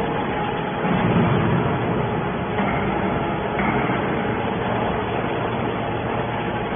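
Hydraulic can baler running: steady machine noise from its motor and hydraulic pump, with a faint steady hum.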